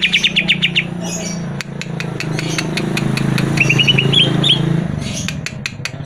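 Greater green leafbird (cucak ijo) calling: a quick rattling run of high chirps at the start, sharp clicking notes scattered through, and another short run of chirps about four seconds in. Under it runs a steady low hum that eases off near the end.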